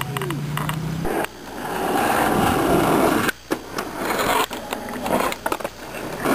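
A steady low hum for about a second. Then skateboard wheels rolling on asphalt, growing louder, a sharp clack as the board hits a wooden box ledge, and the board sliding along the box, with a few more clacks of the board after it.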